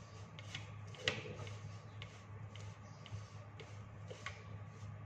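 A utensil stirring dry flour mix in a glass bowl, giving light, irregular clicks and taps against the glass over a low steady hum.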